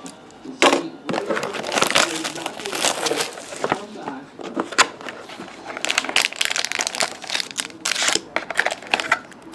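Crinkling and tearing of trading-card box packaging, plastic wrap and cardboard: a rapid, uneven run of rustles and rips.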